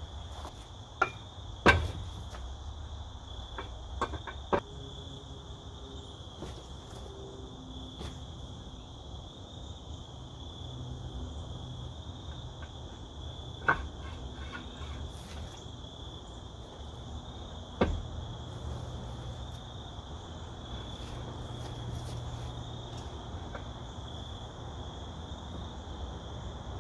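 Steady high chorus of crickets, with a few sharp knocks and clanks now and then, the loudest about two seconds in, about halfway through and about two-thirds through.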